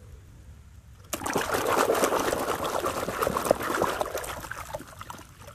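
Hands swishing and splashing toys around in a basin of muddy, foamy water. The splashing starts about a second in, made of many small splashes, and slowly dies down toward the end.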